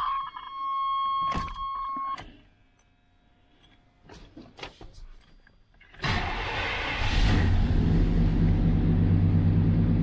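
The pickup's steady electronic warning chime sounds for about the first two seconds, then a few clicks. About six seconds in, the 1991 Chevrolet pickup's engine starts and then runs steadily, louder than the chime.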